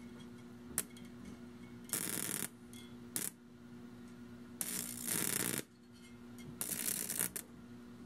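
High-voltage arcs from a microwave oven transformer, crackling and buzzing in several separate bursts, the longest about a second, as a wire is brought to the terminal and drawn away. Under them runs a steady electrical hum.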